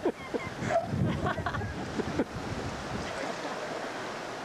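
Steady rushing of a fast river's current. Indistinct voices and a few knocks are heard over it for about the first two seconds.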